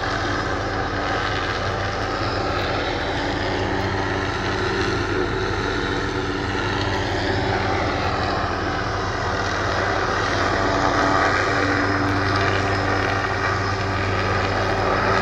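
Helicopter hovering with an aerial saw, a string of spinning circular saw blades hanging beneath it, trimming trees along power lines. It makes a very loud, steady drone that grows a little louder in the second half.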